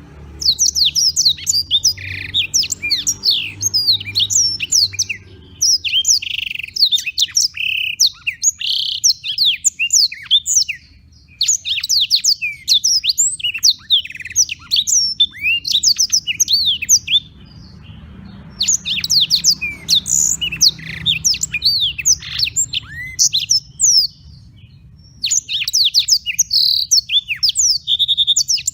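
Black-throated canary (blackthroat) singing vigorously: long phrases of fast, high, twittering trills and chirps, broken by a few short pauses, over a faint low rumble.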